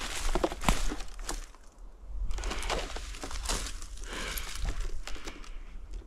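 Rustling and crackling of dry forest litter, leaves and twigs, in irregular bursts with sharp snaps and a short pause about two seconds in.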